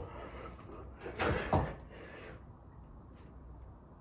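Thuds of a person's hands and feet landing on an exercise mat as he drops down into a burpee. There are two louder thuds about a second and a half in.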